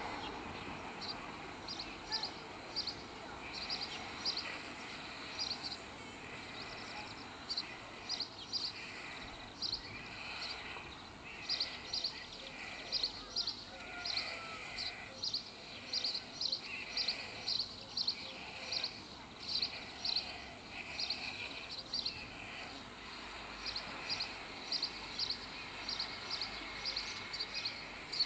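White stork chicks giving drawn-out, bleating begging calls as they are fed on the nest, mostly in the first two-thirds. Over them a small bird chirps repeatedly, about twice a second throughout.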